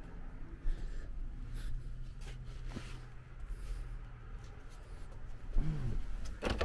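Handling noise from a hand-held camera being carried through a motorhome interior: scratchy rubbing and a few light knocks, over a faint low hum.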